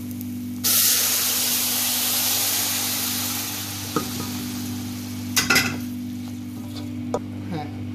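Hot water poured into a hot pan of fried basmati rice and peas: a sudden loud sizzle about a second in that slowly dies away. Then a wooden spoon scrapes and stirs the rice in the water.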